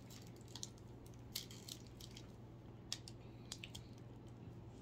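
Plastic wrapper of a chocolate wafer bar crinkling a few times as it is peeled open, over a low steady hum.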